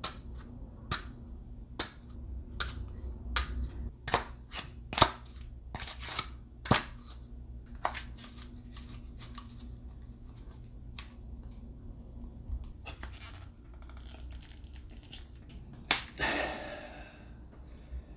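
Nerf Jolt single-shot spring blaster being handled and loaded: a run of sharp plastic clicks and snaps as the foam dart goes into the barrel and the blaster is worked, then softer handling. Near the end comes one sharp snap as the blaster fires, followed by a short rough noise.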